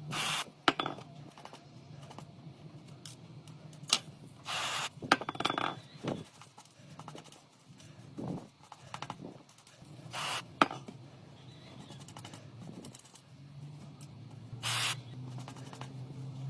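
Hand work on a small object: four short hissing or scraping bursts and several sharp clicks, over a low steady hum that drops away in the middle and returns near the end.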